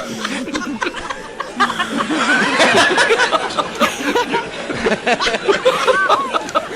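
A crowd of people laughing together, many voices overlapping in chuckles and bursts of laughter, swelling for a moment about two to three seconds in.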